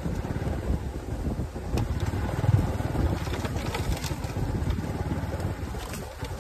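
Wind buffeting the microphone, a continuous low irregular rumble, with a few faint clicks.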